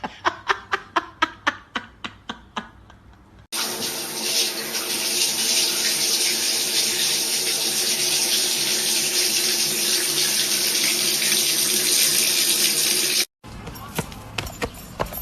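Water running steadily from a tap into a sink for about ten seconds, preceded by a quick run of about a dozen sharp clicks that fade out.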